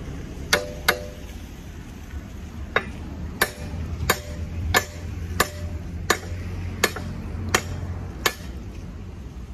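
Claw hammer nailing wooden formwork boards: two sharp strikes near the start, then a steady run of nine strikes about every 0.7 s, several with a short metallic ring, over a low steady rumble.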